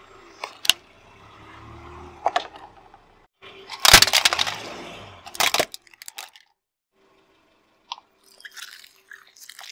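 Car tyre rolling over and crushing plastic toys on asphalt. A few sharp cracks come early, then a loud spell of plastic cracking and crunching about four seconds in. Near the end there is softer, scattered crackling as the tyre rolls onto a row of squishy balls.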